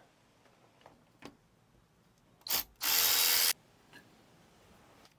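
A cordless power drill-driver gives a short blip, then runs steadily for about two-thirds of a second, backing out a bolt on the bracket that blocks the distributor on a Mercruiser 5.0 engine.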